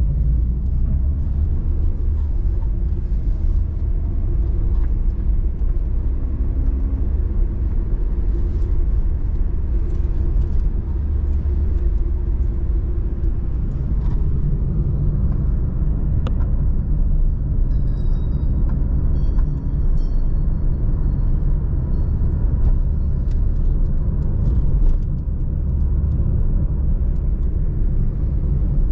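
A steady low rumble, with a few short high-pitched tones a little past the middle.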